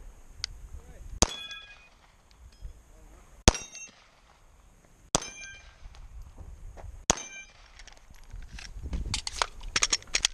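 Four pistol shots about two seconds apart, each followed by a short metallic ring from a steel target being hit. Near the end comes a rapid run of small clicks and rattles as the pistol is reloaded.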